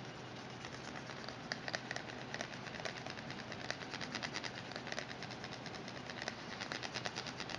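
Steel spoon rubbed over a 3D-printed chassis tube coated with iron paint, burnishing the metallic coat: a quick irregular run of short scraping strokes, several a second, over a steady hiss.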